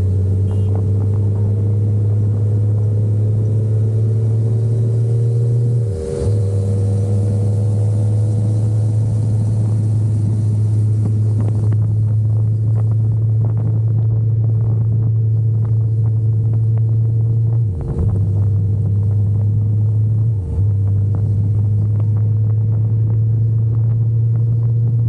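Sport motorcycle engine running steadily at highway cruising speed, under heavy wind rumble on the action camera's microphone. The engine note climbs slightly over the first several seconds, and the sound dips briefly three times.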